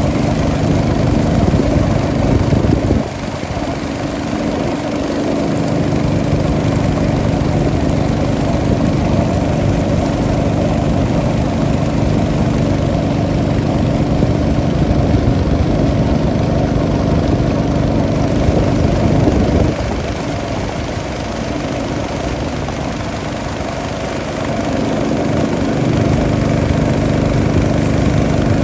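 An engine running steadily, easing off in level about three seconds in and again about twenty seconds in, picking back up a few seconds after each.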